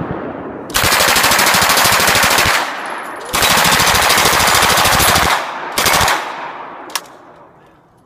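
Lage MAX-41A pulse rifle firing fully automatic: a burst trailing off at the start, then two long bursts of about two seconds each, a short burst about six seconds in and a single shot a second later, each dying away in an echo.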